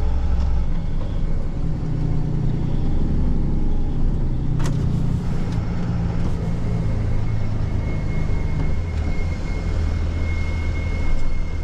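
Tow truck running, a steady low engine rumble heard from the cab as it rolls up or idles at the scene. A single sharp click comes about halfway through, and a thin steady high whine sits over the rumble in the second half.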